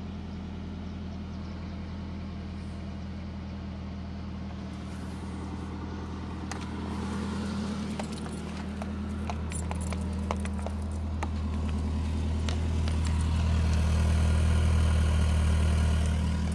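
A 1994 Honda Accord's F22B four-cylinder engine idling steadily through its exhaust. It grows louder over the last few seconds as the tailpipe is approached. The owner knows the exhaust manifold is cracked.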